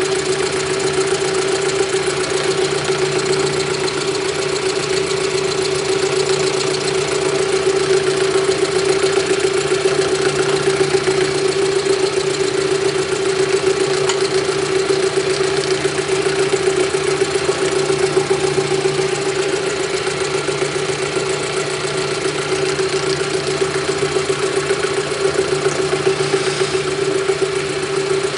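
A drilling-milling machine running steadily, its motor humming at one constant pitch with a fast, even rattle over it.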